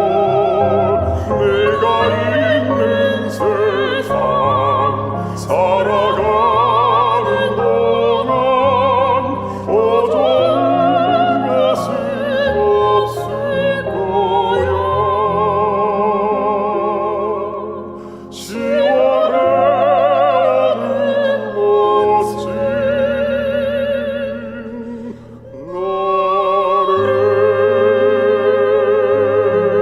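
Background music: a slow classical-style melody of long held notes with heavy vibrato, sung or played in an operatic manner over a sustained bass.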